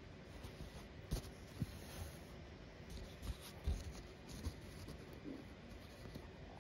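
Faint scratching and rustling of fingers handling and rubbing stamped cross-stitch fabric, with a few soft low thumps.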